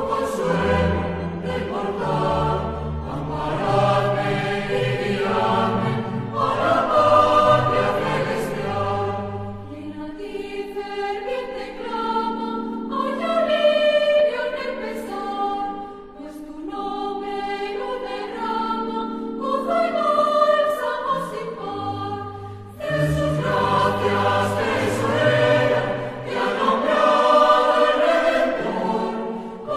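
A choir singing slow music in long held notes. The low voices drop out about a third of the way through and come back about three-quarters of the way through.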